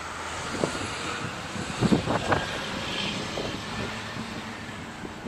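Distant engine noise outdoors: a steady rushing drone that swells a little in the first half and eases off towards the end.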